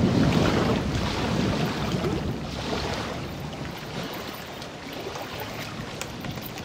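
Wind buffeting the microphone over choppy lake water, an even rushing noise that eases off steadily.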